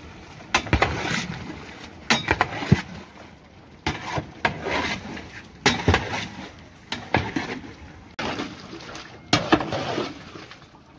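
Food-preparation sounds: repeated bursts of splashing and clattering with sharp clinks, broken off abruptly a few times.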